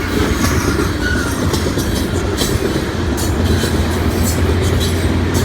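Loaded coal train rolling past, a steady low rumble with the wheels clacking over rail joints.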